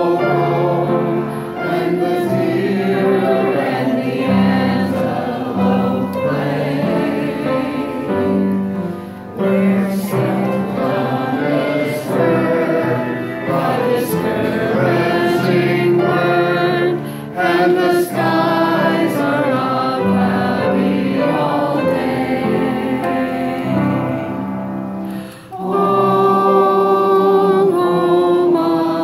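A group of voices singing together to upright piano accompaniment, a sing-along, with short breaks about every eight seconds between lines.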